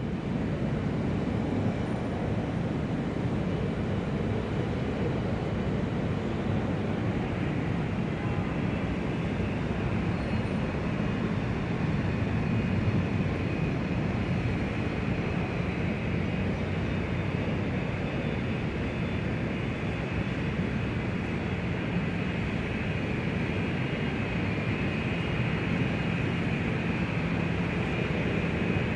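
Large airport ambience: a steady low rumble and hum with a faint high whine above it, without clear voices.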